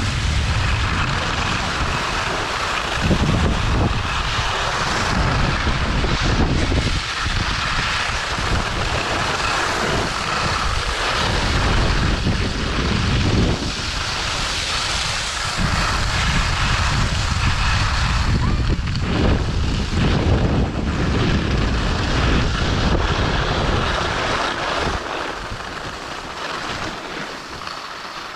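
Wind buffeting the microphone of an action camera while skiing downhill, with the steady hiss of skis sliding over snow. It gets quieter near the end.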